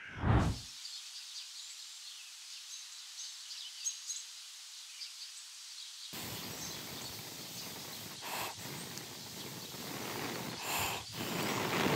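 A low thump right at the start, then faint outdoor ambience with birds chirping. From about halfway through, a rustling noise of dry pine-needle tinder being handled, with a couple of brief louder scuffs, growing louder toward the end.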